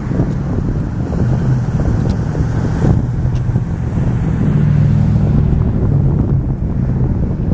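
Wind buffeting the microphone: a loud, uneven low rumble that rises a little in the middle.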